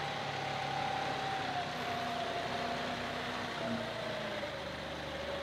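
John Deere 2038R compact tractor's diesel engine running as the tractor creeps forward. A thin whine slowly falls in pitch over the engine sound.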